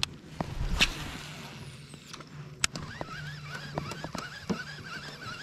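A cast with a baitcasting rod and reel: a swish about a second in as the lure is thrown, a sharp tick near the middle, then a wavering high whine that runs on to the end.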